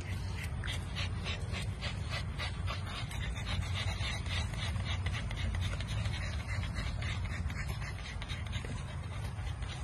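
Puppies panting fast, about three breaths a second, softer in the last few seconds, over the steady low rumble of a car.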